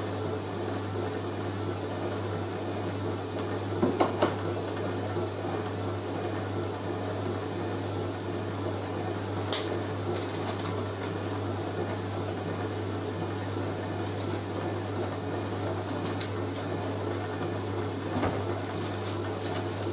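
Hoover A3060 Electronic 1100 washing machine running with a steady low hum, with a few short knocks about four seconds in and again near the end.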